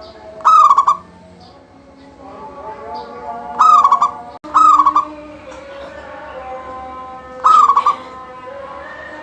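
Zebra dove (perkutut) singing, four loud cooing calls each ending in a short trill, in full song.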